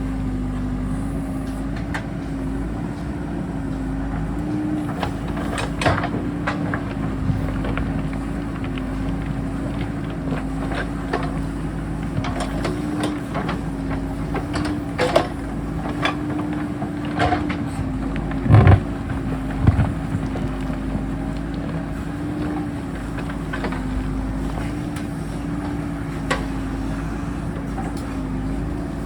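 JCB backhoe loader's diesel engine running steadily under load, its pitch wavering slightly, with scattered knocks and clanks of the digging on rock. Two heavy thumps come about two-thirds of the way through.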